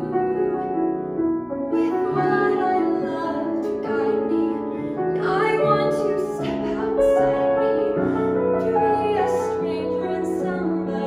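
A woman singing a musical-theatre song with grand piano accompaniment. The piano plays alone briefly, and her voice comes in about two seconds in.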